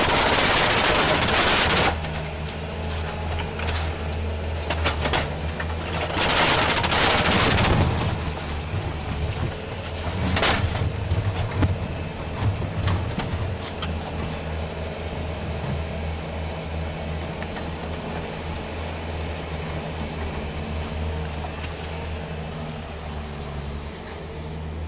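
A machine runs with a steady low drone. Two loud hissing bursts of about two seconds each come at the start and about six seconds in, and a few sharp clicks follow.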